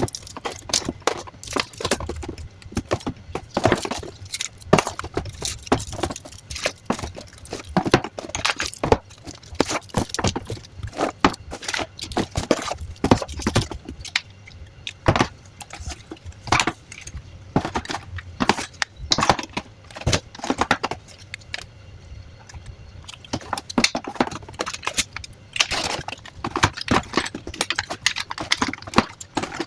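Bottled yogurt and milk drinks being set one after another onto refrigerator shelves: a steady run of irregular clacks and knocks as containers touch the shelves and each other.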